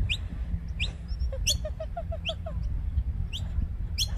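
Birds chirping: sharp, high, upward-sweeping chirps repeated about twice a second, with a quick run of lower notes about a second in, over a steady low rumble.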